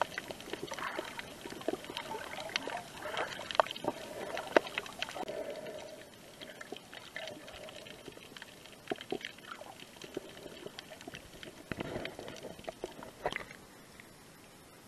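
Muffled underwater sound heard through an action camera's waterproof housing: water moving and gurgling around the camera, with many scattered sharp clicks. Near the end it drops to a quieter, steadier hiss as the camera comes out of the water.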